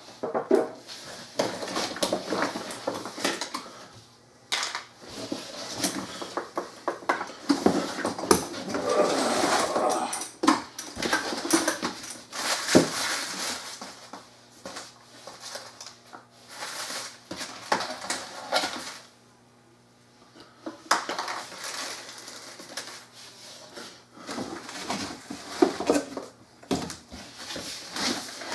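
Handling noise from unpacking an electric pressure washer: a cardboard shipping box flexing and scraping, plastic parts knocking and rattling, and plastic bags rustling, in irregular bursts with a few short pauses.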